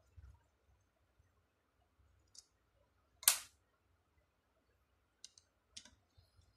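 Screwdriver clicking against the metal bolts and rectifier plate of a Lexus LS 430 alternator: a few separate sharp clicks, the loudest a little past halfway.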